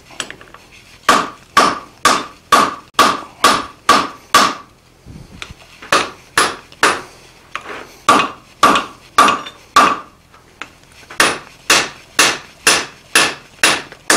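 Hand hammer striking a red-hot steel bar on an anvil, about two blows a second in three runs of seven or eight with short pauses between, each blow ringing briefly. The smith is hammering the hot end flat into a taper, shaping the blade of a scroll-starter hardy tool forged from sucker rod.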